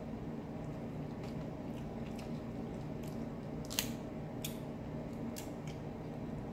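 Shell of a boiled shrimp being peeled by hand: scattered small crackles and clicks, the sharpest about four seconds in. Under them runs the steady hum of a small fan.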